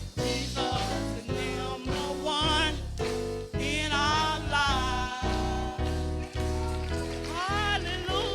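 Live gospel praise music: a band with a steady bass line under keys, and a singing voice carrying a bending, gliding melody over it.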